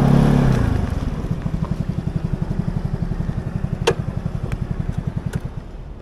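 A small engine running with an even pulse of about ten beats a second, fading steadily as it goes. A few sharp clicks sound after the middle.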